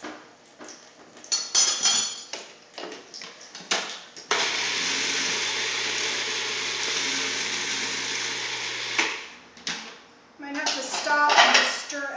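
A few clinks of a spoon and the lid against the food processor's plastic bowl, then the food processor motor runs steadily for about five seconds, blending a thick basil-cashew pesto with added water, and stops abruptly.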